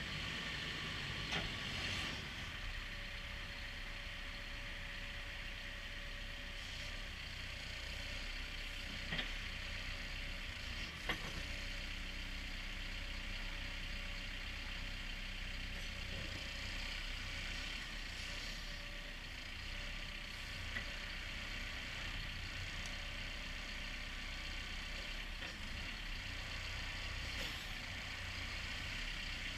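Cat 430F backhoe loader's diesel engine running steadily at a low, even speed. A few short sharp clicks or knocks stand out over it.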